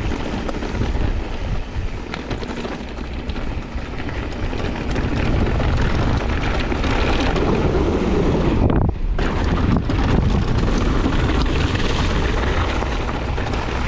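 Wind rushing over the helmet-camera microphone and mountain bike tyres rolling over loose gravel at speed, with steady fine clicks and rattles from the stones and bike. The sound drops out briefly about nine seconds in.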